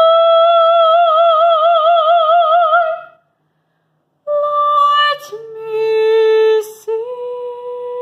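A woman singing unaccompanied, holding one high note whose vibrato widens as it goes, until about three seconds in. After a second of silence she goes on with a few held notes, each lower than the last.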